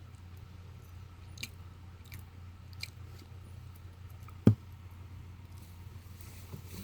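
Faint light taps and handling noise of an iPad being worked through its setup screens, with one louder thump about four and a half seconds in, over a low steady hum.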